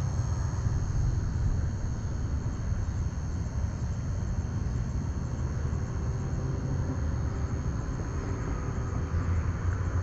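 Steady low rumble of outdoor night ambience, with insects such as crickets keeping up a thin, steady high drone over it.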